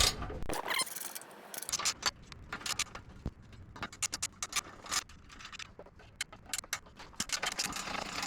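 Light metallic clicks, clinks and scrapes of hand tools and exhaust hardware being handled while the bolts of a car's stock exhaust are worked loose, with a quick run of ticks about a second in.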